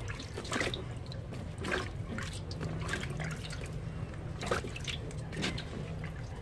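Water splashing and dripping as wet cucumbers are lifted out of a basin of rinse water into a plastic colander, water running off them back into the basin in irregular splashes and drips.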